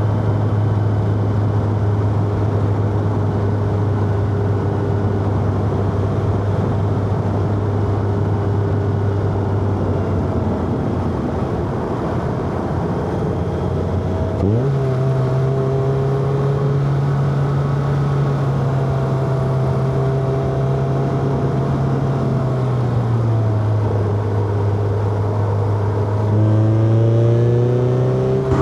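Inline-four car engine under way on a mountain road, holding a steady note for about half the time. Then the revs jump quickly, as on a downshift, and hold at a higher pitch, dipping briefly and climbing again near the end, with steady road and tyre noise beneath.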